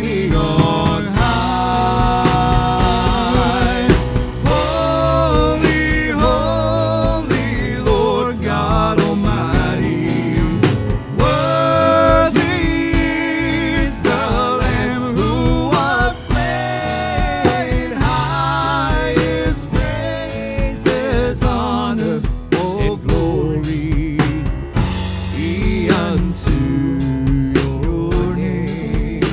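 A worship band playing a song with sung vocals and a drum kit keeping a steady beat.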